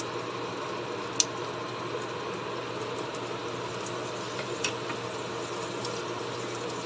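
Kitchen utensils clicking sharply against a frying pan of onions and garlic a few times, loudest about a second in, over a steady hum and hiss.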